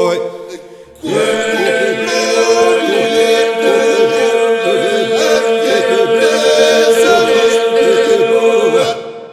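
Unaccompanied Albanian Lab polyphonic men's singing: the group holds a steady drone while a lead voice sings a wavering, ornamented melody above it. The singing dips briefly just before a second in, then comes back in strongly and holds until it drops off near the end.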